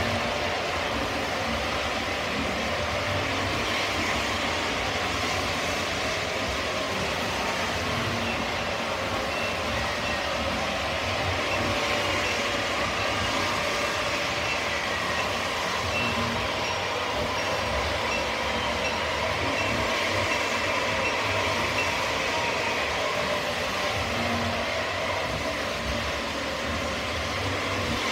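O scale model trains rolling past on the layout's track: a steady rumble of wheels and motors on the rails, with no break.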